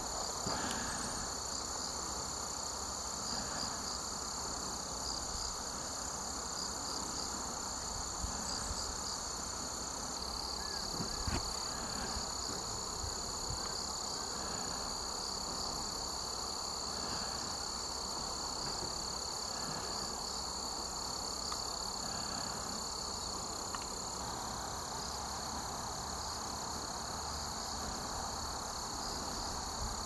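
Insects trilling steadily outdoors: two continuous high-pitched tones with a few faint chirps, over a low, even background hiss. A single soft knock about eleven seconds in.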